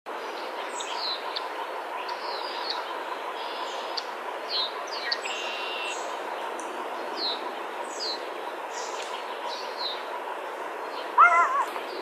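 Songbirds chirping: short, high, falling chirps repeated every half second or so over a steady hiss. About a second before the end comes a louder, brief run of pitched, arching sounds.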